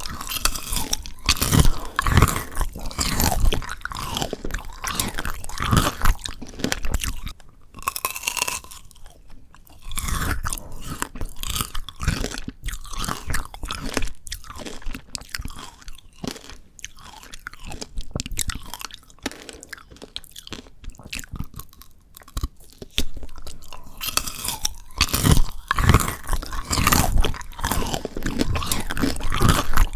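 Close-miked biting and chewing of frozen Shine Muscat grape tanghulu: the hard sugar-candy shell and icy grapes crunch and crackle in quick irregular bites, with a quieter spell of chewing about a third of the way in.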